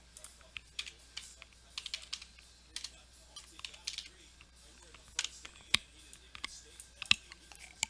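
Typing on a computer keyboard: irregular runs of keystroke clicks, with a few louder key presses near the end.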